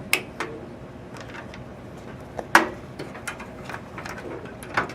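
Scattered sharp plastic clicks and knocks of SATA cables being handled and plugged into drives and motherboard inside a computer case, the loudest click about halfway through.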